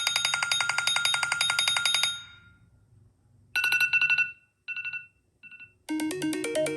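iPhone 14 Pro stock ringtones playing in turn from the phone's speaker. A fast trilling ring stops about two seconds in. After a short pause comes a brief pulsing ring followed by two short beeps. Near the end a new melodic ringtone with a steady beat begins.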